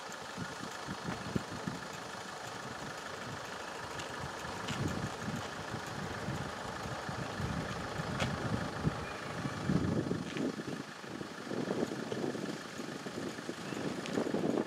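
Level crossing warning bell ringing steadily while the barriers are down, over a low, uneven noise that grows louder in the second half.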